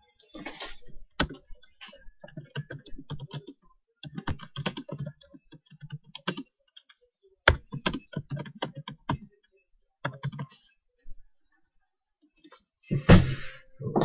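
Typing and clicking on a laptop keyboard and mouse in irregular bursts of clicks with short pauses, then a louder thump about a second before the end.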